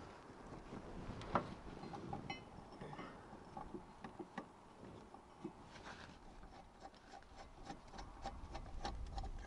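Ratchet wrench clicking as the rear brake caliper carrier bolts are run in, with light metal taps and knocks of the carrier against the hub; the ticking becomes a quick regular run in the second half.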